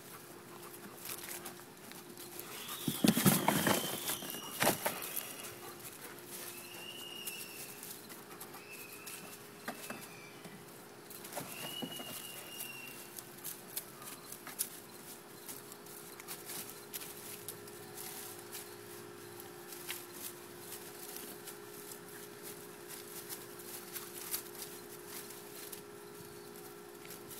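Doberman Pinscher puppies at play: scuffling and small clicks and pats throughout, a louder burst of rough play about three seconds in, and a few short high squeaks scattered through the first half.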